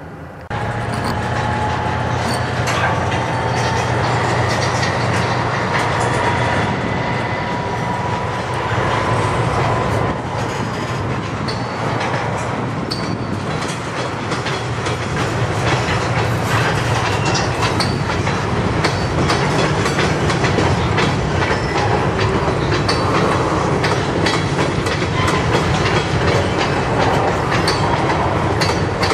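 Loaded covered hopper freight cars rolling past at slow speed, their wheels clicking over rail joints with a steady rumble. A thin wheel squeal rises slightly in pitch through the first ten seconds or so.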